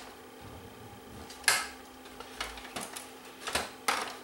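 Knocks and clatter of a VCR's plastic-and-metal chassis being handled and shifted on a bench with a screwdriver in hand: a few sharp knocks, the loudest about a second and a half in and again near the end.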